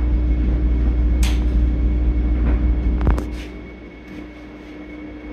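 Vande Bharat Express electric train heard from inside the coach as it moves slowly: a steady low rumble with a constant hum and a faint high whine. There are a few light knocks and clicks about a second in and just after three seconds, and then the rumble falls away noticeably for the last two seconds.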